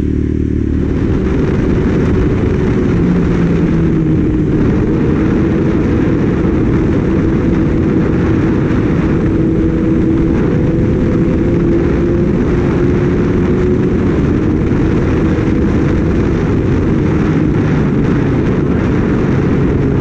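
Loud wind rushing over the microphone of a moving Kawasaki Ninja ZX-6R, with the bike's inline-four engine running steadily beneath it, its pitch drifting only a little.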